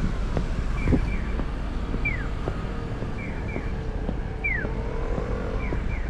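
Japanese pedestrian crossing signal's electronic bird-chirp guidance tone: a single falling chirp alternating with a quick double chirp, repeating at a steady beat about every two and a half seconds, over steady traffic and wind noise.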